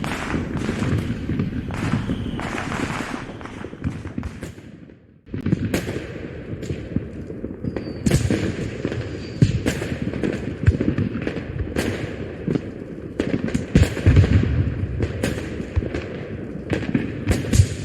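Added fireworks sound effect: aerial shells bursting one after another with crackle and low booms. The sound dips to almost nothing for a moment about five seconds in, then the bursts resume.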